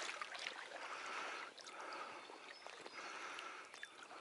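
Shallow river water sloshing and gurgling around a wader's legs, swelling and easing about once a second.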